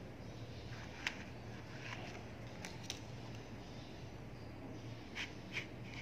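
Small magnetic balls clicking as a sheet of them is handled and pressed into place: a few sharp, separate clicks, two of them close together near the end, over a faint steady hum.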